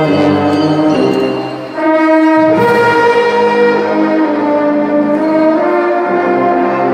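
Marching band brass section (trumpets, trombones, euphoniums and sousaphones) playing loud sustained chords. The sound eases off briefly about a second and a half in, then a fuller chord comes in.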